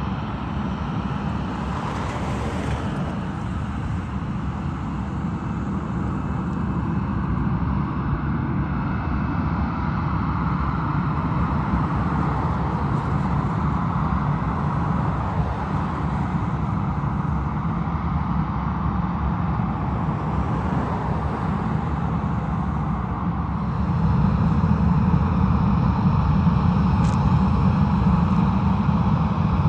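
Jet engines of a taxiing Boeing 737 at low power: a steady drone with a low rumble and a whine-like band in the middle, growing louder about three-quarters of the way through.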